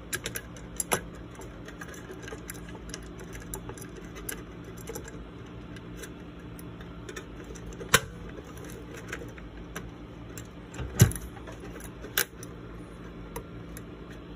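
Small metal clicks and knocks as a black iron CPU-cooler backplate and its screws are handled and seated against a motherboard: a few light clicks at the start, then sharp single knocks about eight seconds in and again around eleven and twelve seconds.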